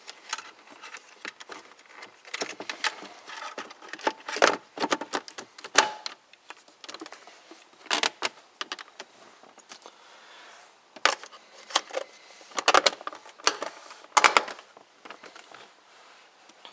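Plastic centre-console trim and its wiring being handled and fitted back into place: irregular clicks, rattles and light knocks, with a few sharper knocks along the way.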